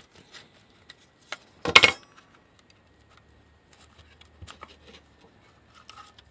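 Plastic case of a Ridgid 18V compact lithium battery pack being pried apart and handled: scattered light plastic clicks and knocks, with one loud sharp clack about two seconds in as the case comes open.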